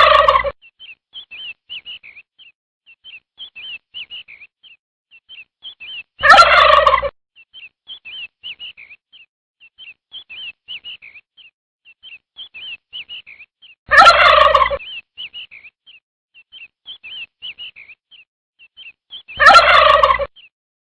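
Young chicks cheeping continuously in quick high peeps. Four times, a much louder call of under a second, falling and warbling, rings out over them from a grown bird.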